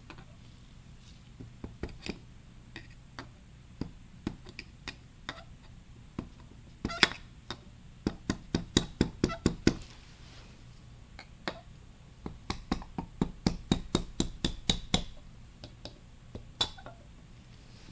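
Hammer tapping on metal while working a bearing in a Honda automatic transmission: a few scattered taps, then two quick runs of about five taps a second, and one last tap near the end.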